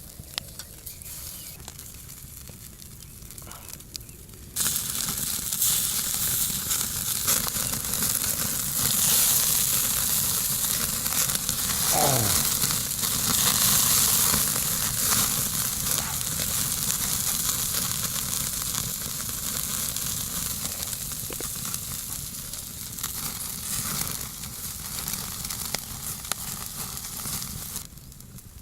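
Pork belly sizzling on a grill over charcoal, a loud, steady hiss that starts suddenly a few seconds in and cuts off just before the end, with one brief falling squeal near the middle.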